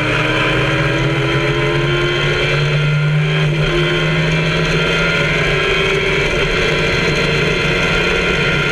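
In-car sound of the MK Indy's Kawasaki ZX-10R inline-four motorcycle engine pulling hard under acceleration, its pitch rising steadily, with one quick upshift about three and a half seconds in.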